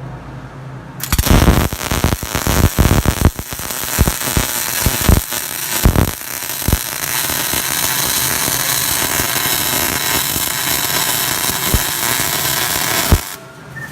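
MIG welding arc laying a bead: it strikes about a second in with irregular loud crackling and popping, then settles into a steady sizzling crackle, and cuts off suddenly near the end when the trigger is released.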